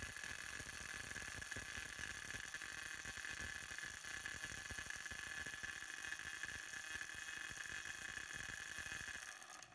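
Electric countertop blender running steadily, puréeing red chilies, garlic and water into a spice paste; it stops near the end.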